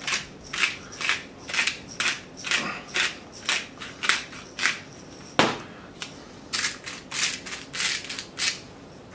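Twist-top pepper and salt grinders being turned, a run of dry crunching clicks about two to three a second as peppercorns and salt crystals are ground, with a short break a little past halfway.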